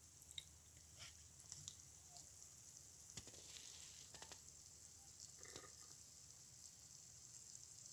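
Faint fizzing and crackling of small bubbles bursting in the rusty foam on an electrolysis rust-removal bath, with scattered soft clicks.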